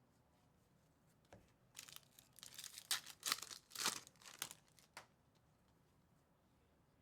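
Plastic wrapper of a trading card pack being torn open and crinkled: a run of short rips and rustles from about one to five seconds in.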